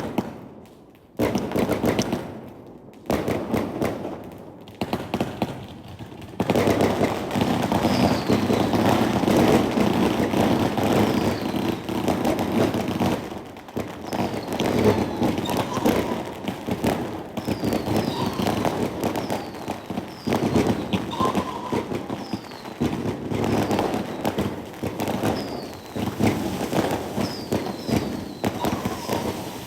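Fireworks and strings of firecrackers going off: a few separate bangs at first, then from about six seconds in a dense, continuous crackle of rapid pops, with many short falling whistles mixed in.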